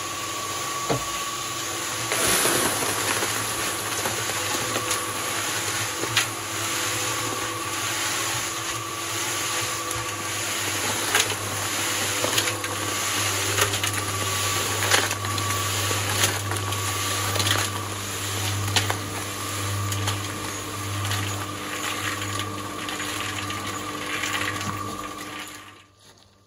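Small electric cement mixer running, its drum churning a wet concrete mix with a steady motor hum and a constant clatter of gravel knocking inside. Around the middle the drum is tipped and concrete slides out into a wheelbarrow; the sound stops abruptly near the end.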